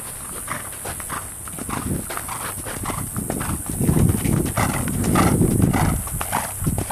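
Hoofbeats of a ridden horse on a sand arena, a steady run of soft thuds that grow louder from about three and a half seconds in as the horse passes close by.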